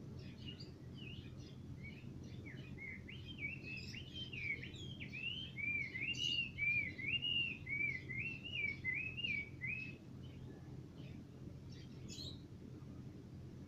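A caged Chinese hwamei (họa mi) singing: varied whistled phrases that settle into repeated slurred notes swooping up and down, about two a second, loudest in the middle. After about ten seconds the song breaks off into a few scattered chips. A steady low hum runs underneath.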